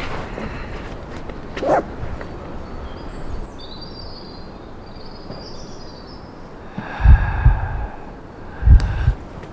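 Small birds chirping in woodland, with two loud low thuds near the end, about a second and a half apart.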